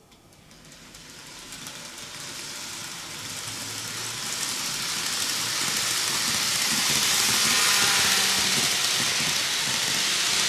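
Kato N-gauge 0 Series Shinkansen model train running on the layout track: the hiss and rumble of its wheels on the rails and its motor, growing steadily louder as it approaches and passes close by.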